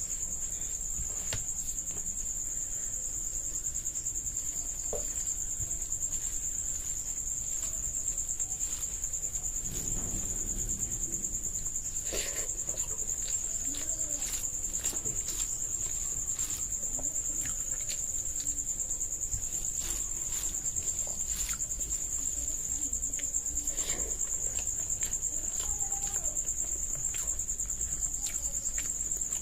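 Crickets trilling steadily at a high pitch, over scattered soft clicks and smacks of a hand mixing rice and curry on a plate and of chewing.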